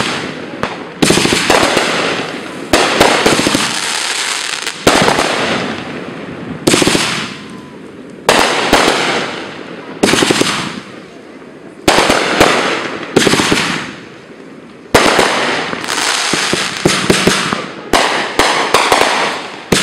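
Aerial firework shells bursting overhead in quick succession: sharp bangs about every one to two seconds, each trailing off into crackle.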